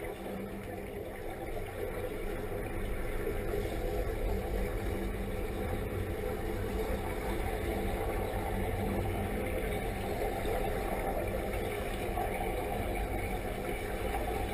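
Muffled underwater rumble and bubbling of divers' released air, rising a little a few seconds in and then holding steady.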